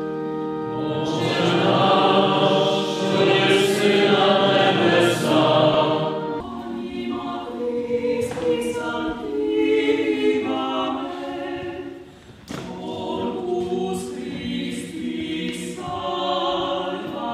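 Church choir singing a hymn, with long held chords in the first six seconds before the melody moves on.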